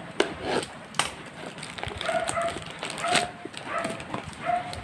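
A parcel being cut and torn open by hand, with sharp clicks and rustles of packaging. An animal, most like a small dog, gives short, high-pitched whimpering calls, four or five of them about a second apart.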